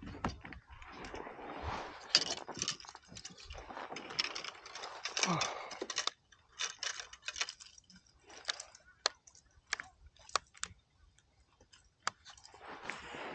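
Fishing tackle handled on a kayak while switching to a crankbait: rustling and knocks for the first six seconds or so, then scattered sharp clicks and ticks.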